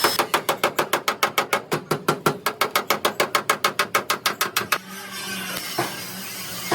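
A rapid, even series of sharp strikes, about seven a second, that stops suddenly about five seconds in. After it comes a steady low hum with a couple of single knocks.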